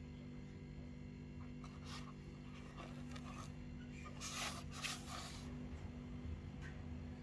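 Faint rustling and scraping of packaging being handled, in a few short bursts with the loudest pair about halfway through, over a steady low hum.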